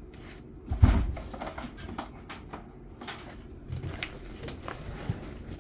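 Small items being handled on a workbench: scattered light clicks and rustles, with one sharp knock about a second in, like something set down on the tabletop.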